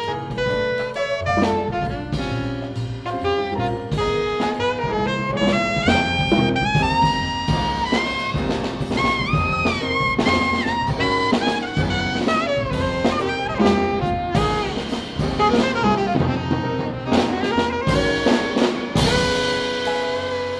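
Live jazz quartet: alto saxophone playing fast melodic lines over grand piano, upright bass and drum kit. About nineteen seconds in the band hits a loud accent and settles onto a long held note.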